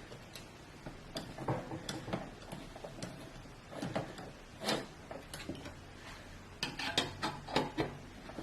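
Irregular clicks, taps and light knocks of computer hardware being handled and fitted during a PC build, with a quick cluster of sharper clicks about seven seconds in.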